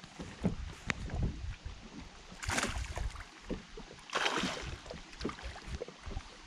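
A small hooked fish splashing at the surface beside a boat as it is brought in by hand, with two brief splashes about two and a half and four seconds in, amid light irregular knocks and bumps.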